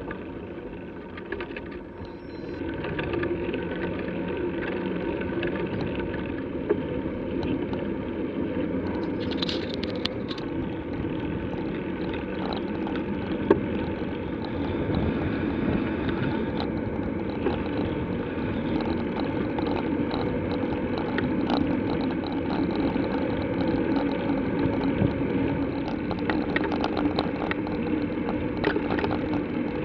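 Steady riding noise of a bicycle on a paved path, picked up close by: a constant rumble of tyres and air rush with many light ticks and rattles. It grows louder about three seconds in as the riding speed picks up.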